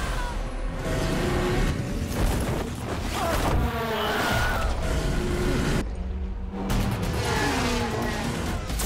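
Commercial soundtrack: music mixed with car and motorcycle sound effects, thinning out briefly about six seconds in.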